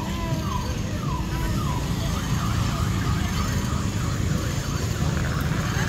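A siren-like electronic tone, falling in pitch over and over about twice a second, fades after about two seconds. It sits over a steady low rumble.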